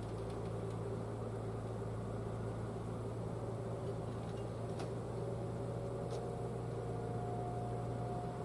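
Distant outdoor warning sirens sounding a steady alert tone, faint, over a constant low hum. A second, higher siren tone comes in about five seconds in.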